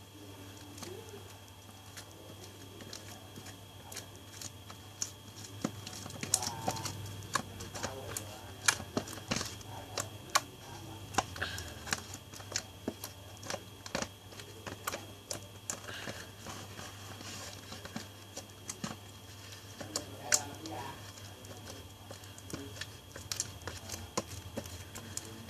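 Homemade slime being kneaded and stretched by hand, giving irregular sharp clicks and small pops that come thicker from about five seconds in.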